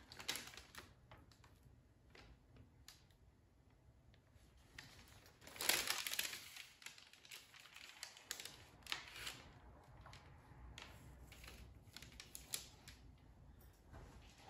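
Parchment paper rustling and crinkling, with scattered light taps and handling noises, as a sticking sourdough loaf is eased out of a banneton basket; the loudest rustle comes about six seconds in.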